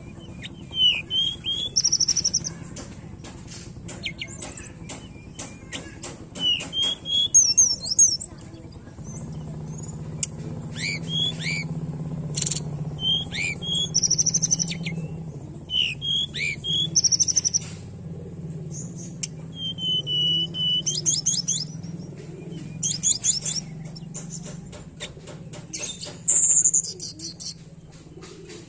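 Hill blue flycatcher (tledekan gunung) singing: repeated short phrases of clear whistles and fast trills, some sliding up or down, with many sharp clicks between them. A steady low hum sits underneath from about a third of the way in.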